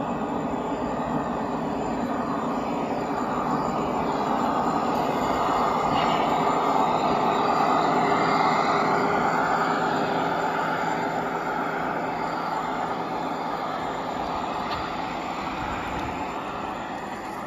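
G-scale model diesel locomotives running on outdoor track, a steady mechanical hum of motors and wheels on rails. It grows louder about halfway through as a locomotive passes close by, then fades a little.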